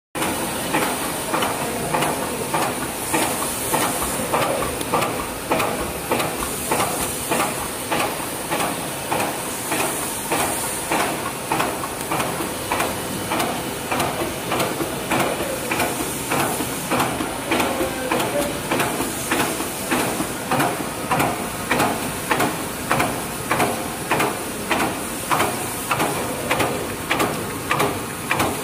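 Alcohol swab and wet wipe packing machine running, its mechanism clacking in an even rhythm about one and a half to two times a second over a steady high hiss.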